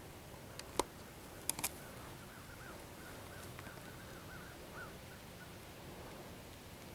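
Faint bird calling in the woods: a quick run of short, repeated notes, about three or four a second, lasting a couple of seconds, over a steady hiss. A few sharp clicks come near the start.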